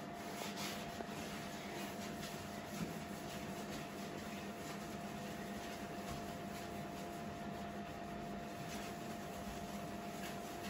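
Cloth in a rubber-gloved hand scrubbing tiled floor: soft, irregular rubbing strokes over a steady hiss and a faint constant hum.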